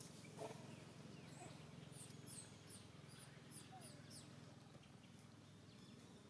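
Near silence, with a run of faint, short, high chirps falling in pitch in the middle, from a small animal, over a steady low hum.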